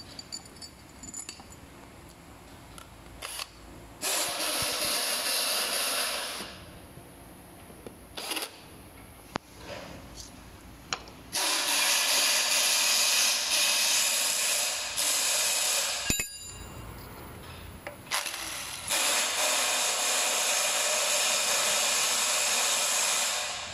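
Cordless drill-driver running in three bursts of a few seconds each, about four, eleven and nineteen seconds in, while driving screws during assembly. Small clicks of parts and screws being handled come in between.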